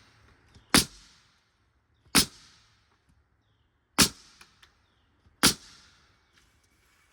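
Framing nail gun firing four times, about a second and a half apart, driving 3 1/4-inch framing nails into lumber: each shot a sharp crack followed by a brief hiss.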